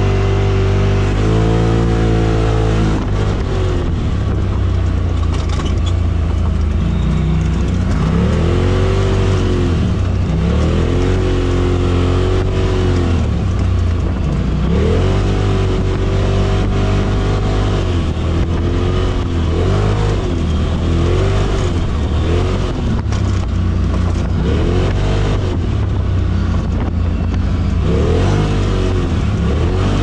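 Off-road buggy engine running under load as it drives, its pitch rising and falling again and again over a steady low rumble.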